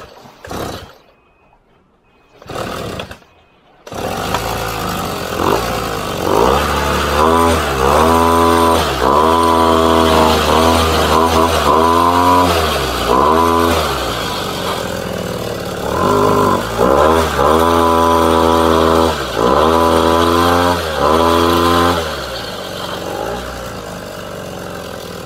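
Small two-stroke brush-cutter engine mounted on a bicycle, sputtering briefly twice and then catching about four seconds in. It is revved up and let back down again and again, in two runs of quick revs, then settles to a lower, steady idle near the end.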